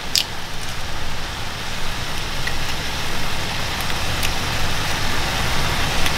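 Shrimp, onions and eggs frying in a pan: a steady sizzle with a few small pops.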